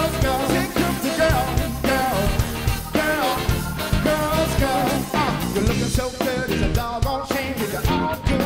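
Live New Orleans funk band playing: a horn section with saxophones and baritone sax, electric guitar, bass and drums, with a man singing over it.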